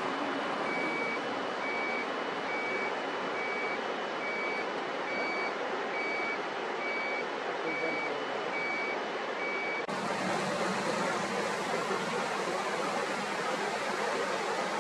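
A vehicle reversing alarm beeping at an even pace, about once a second, over a steady rushing noise. The beeping stops about ten seconds in at an abrupt change in the sound, and the rushing noise carries on.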